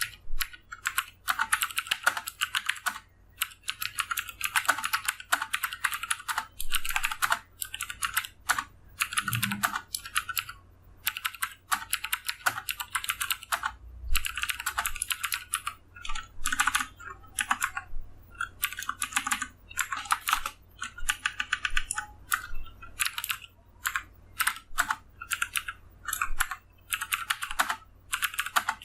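Fast typing on a TVS Gold mechanical keyboard with clicky Cherry MX Blue switches: rapid keystroke clicks in runs broken by short pauses.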